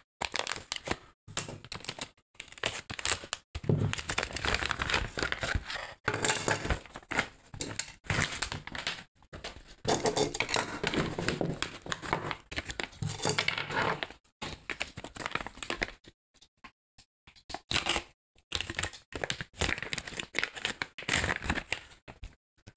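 Plastic wrapping crinkling and tearing in irregular bursts as parts are unwrapped by hand, with a few short clicks.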